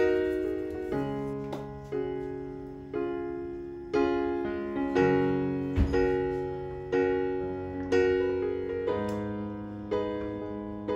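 Background piano music: gentle notes and chords struck about once a second, each fading away before the next.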